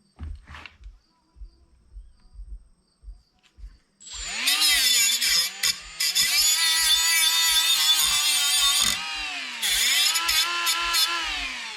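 Electric power tool motor spinning up with a high whine. It runs at speed and dips in pitch twice as it is loaded, then winds down near the end. Regular low thumps run underneath.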